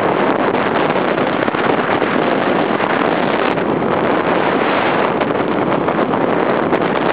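Steady rushing noise of downhill skiing: wind buffeting the microphone and skis running over snow.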